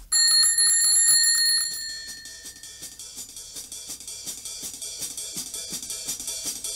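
A bell strikes once and rings out for about two seconds, then a quick, even ticking beat with light drums and cymbals comes in and grows louder: a cartoon soundtrack cue for a bicycle riding in.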